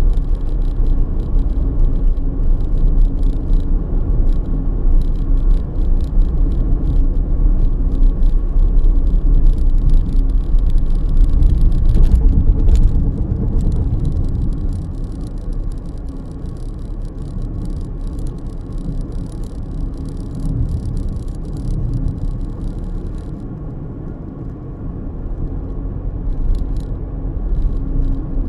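Road noise inside a moving car: a steady rumble of tyres on asphalt and the engine, easing off for a while in the second half before rising again.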